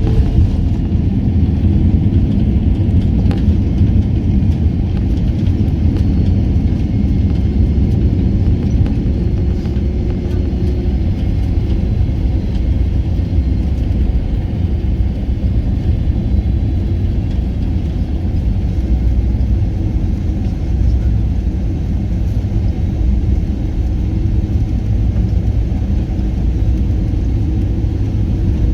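Steady low rumble of an Icelandair airliner's engines and airframe, heard from inside the cabin.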